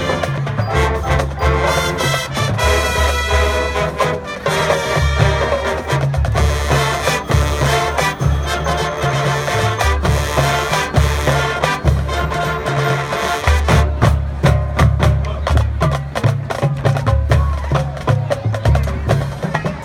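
Marching band playing: brass over a steady low bass line, with drums and other percussion striking sharp hits that grow busier in the second half.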